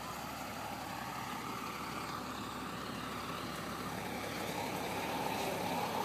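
Bus engine idling steadily under general street noise, growing slightly louder towards the end.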